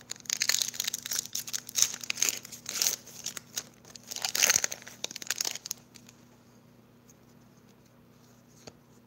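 Foil wrapper of a Pokémon TCG booster pack crinkling and tearing as it is pulled open by hand, a dense crackle for about six seconds, then it goes quiet apart from one small tap near the end.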